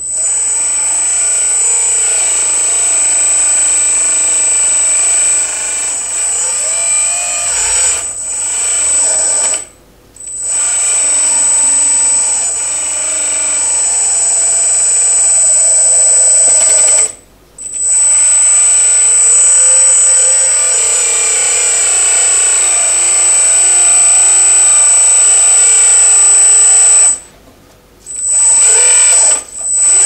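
Electric hydraulic pump of a 1:14 Double E E116 RC skid steer loader whining steadily as the bucket and lift arms are worked. It cuts out three times for about a second when the controls are let go, since the pump is set to no idle speed.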